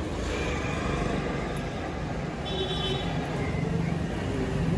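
Roadside traffic noise: a steady rumble of passing vehicles, with a short high tone about two and a half seconds in.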